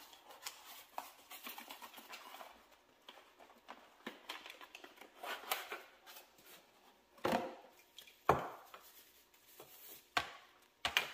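Small cardboard box being opened and handled, with rustling of packaging and wrapping as a lamp and its cord are pulled out. There are scattered light clicks, with several sharper knocks in the second half.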